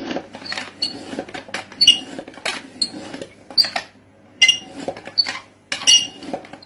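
Handheld wooden slicer with a metal blade worked by hand through a dry sheet, chopping it into thin sticks. Repeated crisp cutting clicks and crackles come about once a second, several with a short high squeak.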